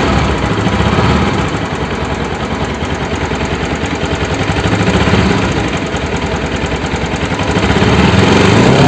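Bajaj Pulsar NS200 single-cylinder engine running with a rapid metallic tick-tick-tick from the top end. It sounds like tappet noise, but it persists after the tappets were adjusted; the cause was traced to a damaged camshaft and worn rocker-arm bearings.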